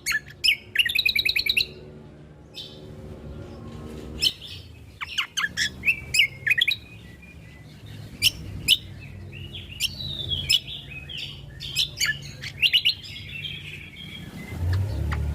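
Cucak kombo (kecial kombo) songbird singing: a string of sharp chirps, short whistled notes and fast trills, with a quick rattling trill about a second in, over a steady low hum.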